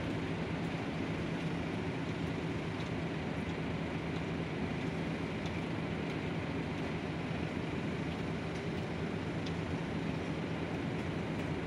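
A steady low hum under an even hiss, a constant background drone with a few faint ticks.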